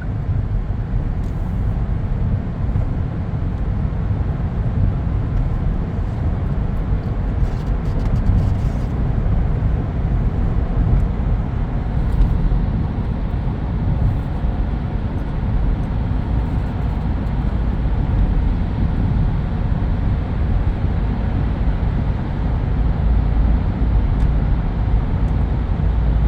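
Steady low road rumble of a moving car, even throughout.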